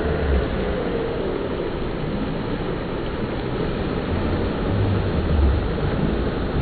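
Wave-pool waves rolling and breaking, a steady rushing wash of water, with low rumbling swells about a second in and again later.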